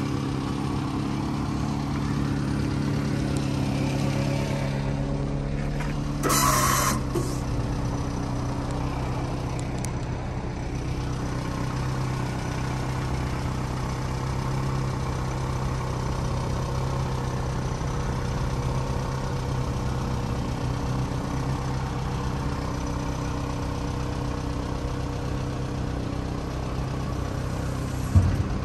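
A Subaru Sambar truck's small four-cylinder engine idling steadily while the hydraulic dump bed is lowered. About six seconds in there is a short, sharp noise of under a second, after which the engine note drops slightly.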